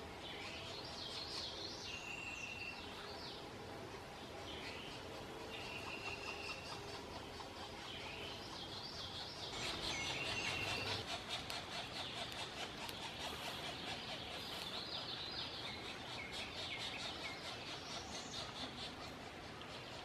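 Several wild birds singing: short whistled notes and rising phrases. About halfway through, a fast, dense chatter of many short notes sets in and carries on.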